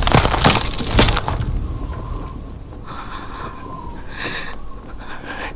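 Sound effects of crashing, breaking impacts: several loud hits in the first second or so, then fading to a quieter clatter with two smaller crunches later.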